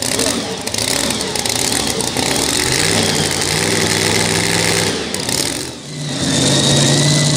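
Two-wheel-drive pulling truck's supercharged engine idling after its pull. About six seconds in, it gives way to another pulling truck's engine idling louder, with a steady high whine over it.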